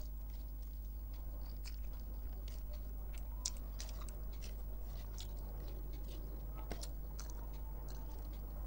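Person chewing a mouthful of rice with dal and vegetable fry: irregular wet mouth smacks and clicks, the sharpest about three and a half seconds in, over a steady low hum.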